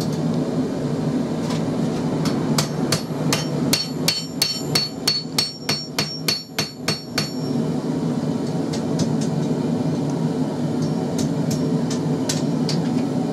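Forging hammer striking red-hot XC75 carbon steel on an anvil, bending the knife's handle over the horn. In the middle comes a run of about a dozen ringing blows, about three a second, with lighter, scattered taps before and after, over a steady low hum.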